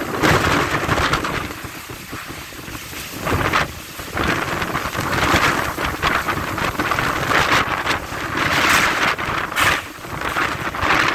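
Typhoon wind and driving rain, the wind gusting hard and buffeting the microphone; the noise swells and drops every second or two.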